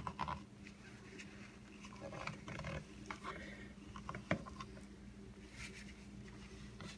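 Paper towel rubbing around the inside wall of a coffee mug, wiping off coffee grime: faint, scattered scratchy rubs, with a small knock just past four seconds in.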